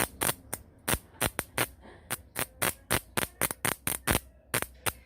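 Microwave-oven transformer running with a low mains hum, while its single thick-wire secondary gives sharp, irregular crackling snaps, roughly five a second, as it sparks. The owner takes the transformer's vibration and noise as the sign of a faulty unit whose case has become magnetised and heats up.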